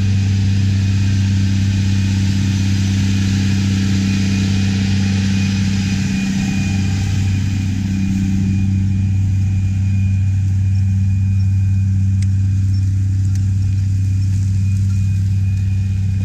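Big Bud 525/50 tractor's diesel engine running steadily under heavy load as it pulls an 18-bottom plow through the soil. It is a deep, even drone that does not change in pitch.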